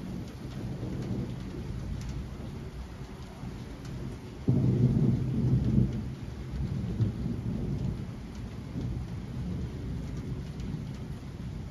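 Thunder over steady rain: a low rumble builds, then a sudden, much louder peal about four and a half seconds in rumbles on for a second or two and slowly dies away.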